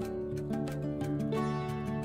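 Background music: a soft instrumental with held, pitched notes over a light, steady ticking beat.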